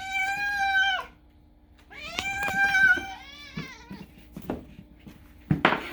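A domestic cat meowing: two long, drawn-out meows about a second apart, each held at a steady pitch, the second slightly wavering.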